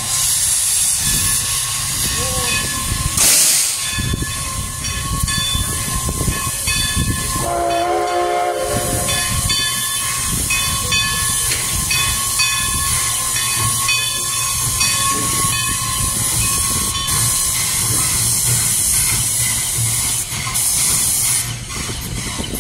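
Steam locomotive moving slowly under steam, with a steady hiss of escaping steam. There is a sharp, loud burst of steam about three seconds in, and a short chime-like steam whistle blast of about a second roughly a third of the way through.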